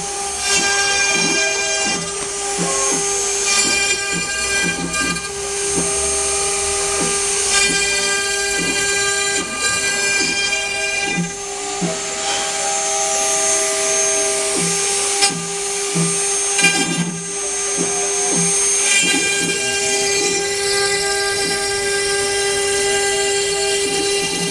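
CNC router running: its stepper motors whine in several steady tones that switch and change pitch every second or two as the axes move, over one constant tone, with frequent short knocks.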